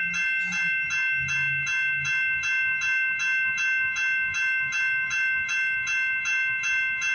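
Railroad grade-crossing warning bell ringing steadily at about three strikes a second, the crossing signals activated for an approaching train.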